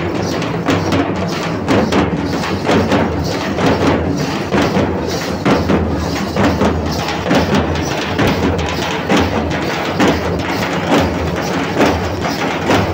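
Live folk drumming for a Gond Gussadi dance, a steady driving beat of repeated drum strokes, with the dancers' ankle bells jingling over it.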